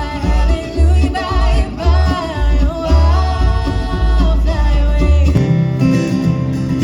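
Bluegrass band playing an instrumental break: a lead line with sliding, wavering notes over guitar and a pulsing bass beat. About five seconds in, the bass beat drops out and acoustic guitar strumming carries on.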